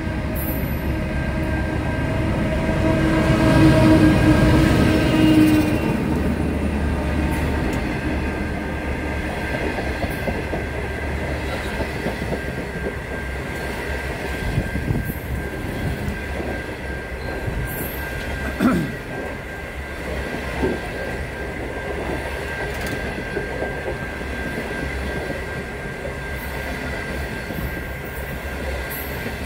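NR class diesel-electric locomotive passing close by, its engine loudest a few seconds in, followed by a long train of stainless-steel passenger carriages rolling past steadily with wheel clatter, a few clunks and one brief falling wheel squeal past the middle.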